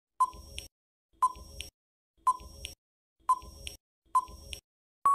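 Countdown timer sound effect: five clock-like ticks, one a second, each a sharp tick followed by a softer click, counting down the seconds. A steady beep starts at the very end, marking time up.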